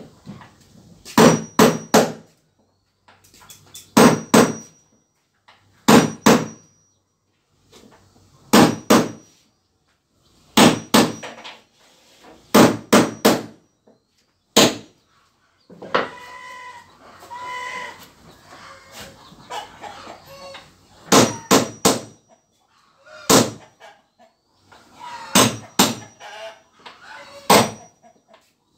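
Hammer driving nails into wooden planks, in short bursts of two to four blows every couple of seconds, each blow with a short metallic ring. A chicken calls about halfway through, in a pause in the hammering.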